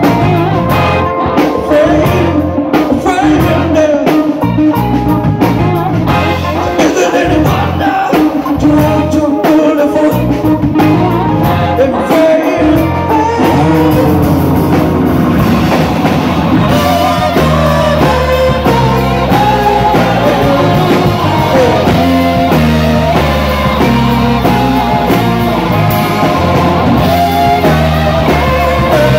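Live rock band playing with a singer, electric guitar, bass and drum kit. About halfway through, the cymbal-heavy drumming drops back and the bass and guitar lines carry the music.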